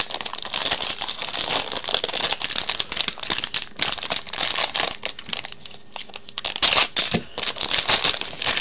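Plastic wrapping crinkling and tearing as a box of trading cards is opened, in stops and starts.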